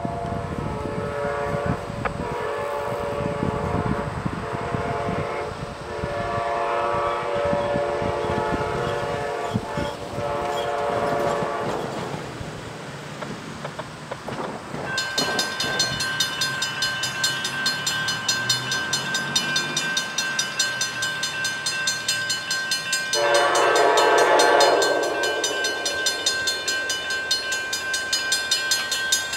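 Approaching Amtrak passenger train's horn sounding two long blasts for the crossing, then another shorter blast near the end. About halfway in, the grade crossing's warning bell starts ringing steadily and keeps going.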